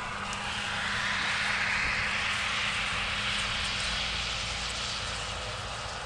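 Vehicle driving, heard from inside the cab: a steady engine hum under a rushing noise that swells about a second in and eases off toward the end.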